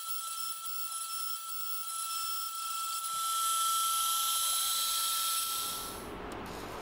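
CNC router spindle running with a steady high-pitched whine and hiss as a 3 mm end mill carves Kauri pine. The whine stops near the end, giving way to a soft hiss.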